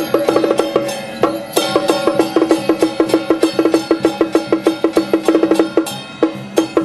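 Temple-procession percussion: a pitched percussion instrument struck fast and evenly, about eight strokes a second. It pauses briefly about a second in and again near the end.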